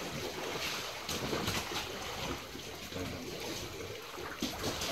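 Wind buffeting the microphone over the steady wash of the open sea around a sailing boat.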